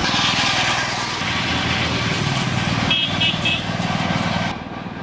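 Single-cylinder diesel engine of a two-wheel tractor pulling a trailer, running with a fast, even beat as it passes. A horn gives three short toots about three seconds in. The engine sound drops off abruptly near the end.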